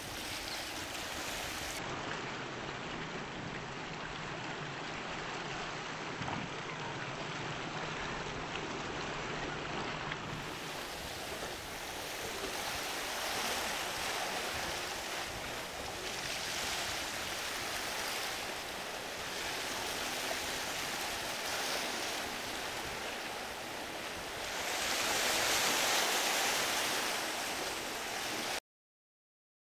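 Surf and waves washing steadily, with a faint low boat-engine hum in the first third; the surf swells louder several times, most of all about 25 seconds in. The sound cuts off abruptly just before the end.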